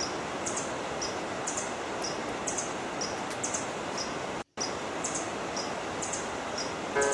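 Steady rush of river water with a bird's short, high chirp repeated about once a second. The sound cuts out completely for a split second about four and a half seconds in.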